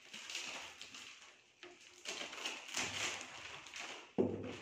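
Clear plastic bag crinkling and rustling in irregular bursts as a soundbar is handled in its wrapping and foam packing. A sudden knock comes about four seconds in.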